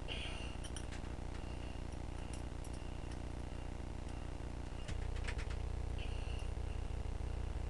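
Thick steel nails clicking and clinking a few times and cloth rustling as the bent nails are handled. A steady low hum runs underneath and gets a little louder about five seconds in.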